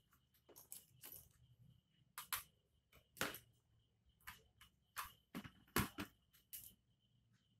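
Plastic speedometer cluster housing being handled and set down on a cutting mat: a scattered series of clicks and knocks, the loudest about three seconds in and just before six seconds, over a faint steady high tone.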